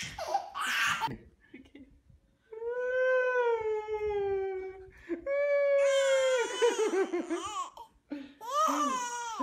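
Newborn baby crying: three long wails, the first about two and a half seconds in, each falling slightly in pitch, the second breaking into a wavering sob at its end.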